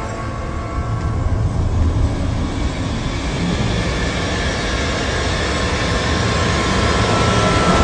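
Low rumbling drone of a tense film score with a few faint held high notes, swelling slowly toward the end.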